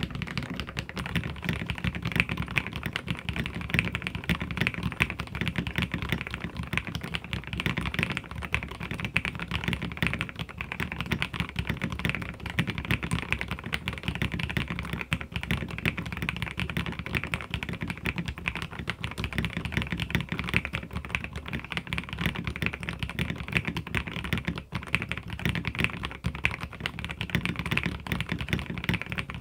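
Fast, continuous typing on mechanical keyboards: a dense, unbroken clatter of keystrokes. It starts on a white-and-blue tenkeyless keyboard and partway through moves to a translucent green Aula keyboard.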